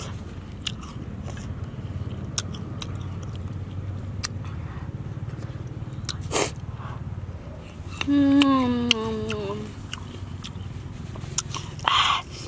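Someone biting and chewing crisp fresh gooseberries: a run of short sharp crunching clicks. About eight seconds in there is a short falling hum from the eater's voice.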